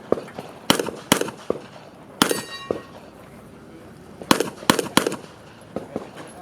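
Handgun shots fired at an irregular pace, some loud and close, others fainter, with a brief metallic ring after one of them about two seconds in.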